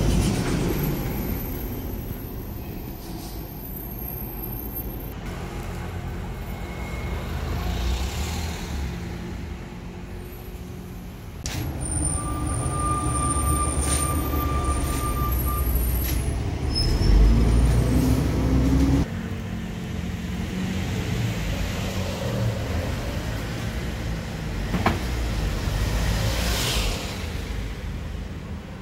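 Street traffic noise with the low rumble of engines passing. A thin, steady high tone is held for a few seconds midway, and the background shifts abruptly several times.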